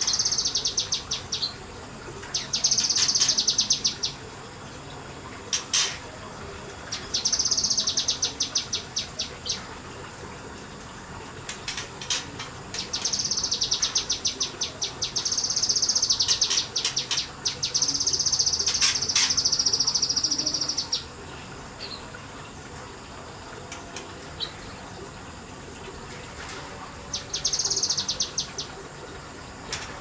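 A kinoi leafbird singing its fast rapid-fire song: rattling strings of sharp, high-pitched notes in bursts of one to four seconds, repeated about six times with pauses between.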